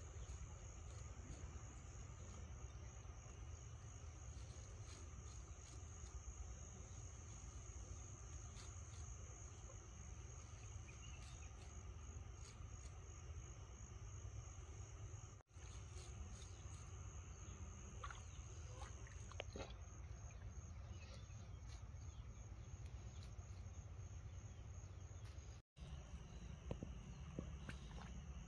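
Faint, steady high-pitched chirring of insects over a low background rumble, broken by two instant dropouts.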